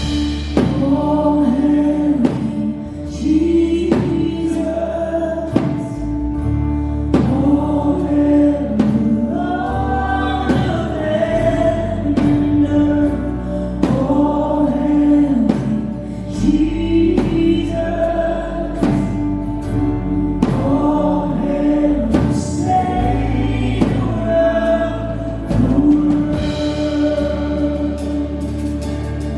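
Live worship music: several voices singing a slow praise song together over long held bass notes and a light steady beat.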